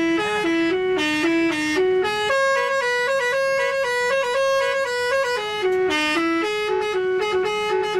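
Bus telolet horn, a set of multi-tone air horns, playing its melody: two notes alternating quickly, a higher chord held for about three seconds, then the quick two-note alternation again.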